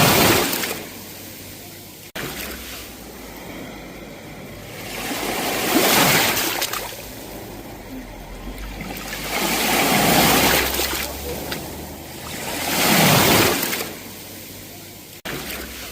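Sea waves washing onto the shore, swelling and falling away in slow surges, four of them a few seconds apart, with two very brief dropouts in the sound.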